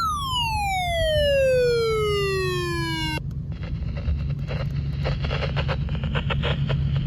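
An electronic tone sweeping steadily downward from high to low pitch for about three seconds and stopping abruptly, followed by a hiss with irregular crackle over a steady low hum.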